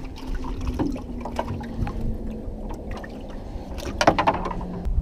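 Small dip net sloshing and splashing through the water of a boat's livewell, scooping for live shrimp bait, over a steady low hum. A louder cluster of splashes comes about four seconds in.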